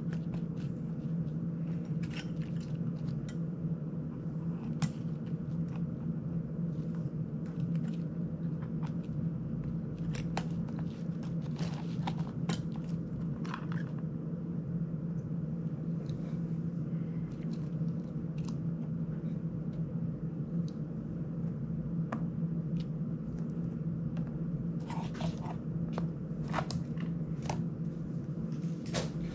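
Small irregular clicks, taps and scrapes of a disassembled FPV drone's plastic ducts, frame and screws being handled by hand, with a flurry of clicks near the end. A steady low hum runs underneath.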